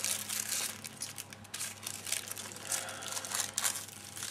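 Clear plastic bag crinkling and rustling in irregular bursts as fingers dig into it.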